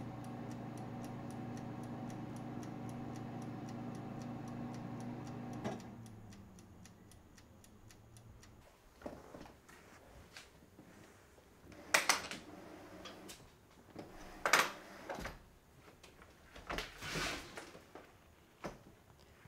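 A countertop kitchen appliance hums steadily with a fast ticking, about three or four ticks a second, then cuts off with a click about six seconds in. After that come scattered knocks and scrapes as a couch is lifted and shifted.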